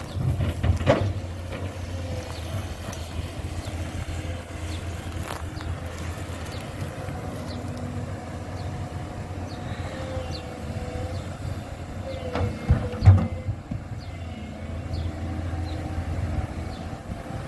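Tracked excavator's diesel engine running steadily while its bucket works among rocks, with a few sharp knocks, the loudest about thirteen seconds in.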